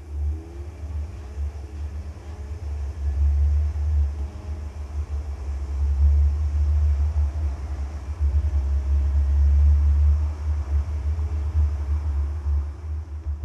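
Ford F550 drivetrain at highway speed making a loud, deep droning rumble that swells and fades, with a faint whine above it. The owner reports that the noise survived a rebuild of the Dana S130 rear differential with new gears and bearings.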